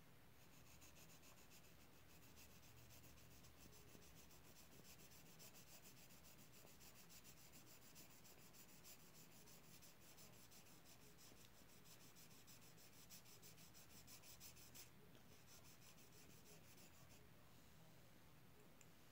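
Faint, rapid scratching of strokes on paper as a picture is drawn and coloured in by hand. The strokes pause about 15 seconds in and then resume more lightly.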